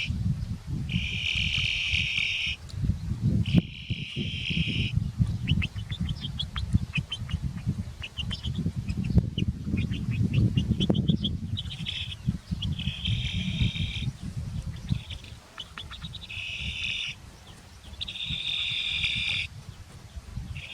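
High buzzing in repeated bursts about a second long, typical of insects, with a run of quick high chirps in the middle, over a low rumbling noise.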